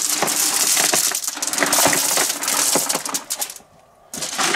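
Washed gravel tipped out of a bucket and spread by hand, the stones clattering and crunching against each other. It stops a little over three seconds in.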